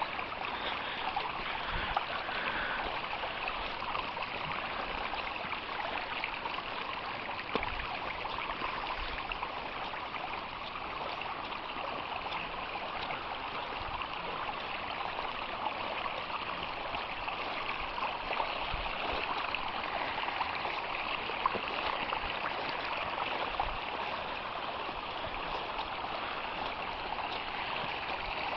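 Rain-swollen stream rushing steadily, full of runoff after heavy rain.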